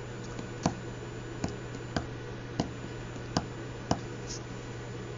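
A series of light, sharp clicks at an uneven pace of about one or two a second, over a faint steady low hum.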